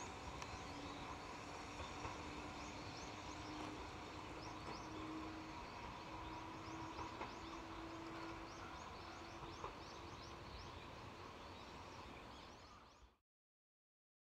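Faint rural outdoor ambience: small birds chirping over and over in quick high notes, with a low steady hum underneath, fading out to silence near the end.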